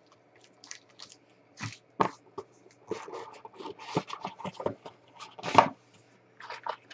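Trading cards and a cardboard card box being handled: a string of short scrapes, taps and rustles, the loudest about five and a half seconds in.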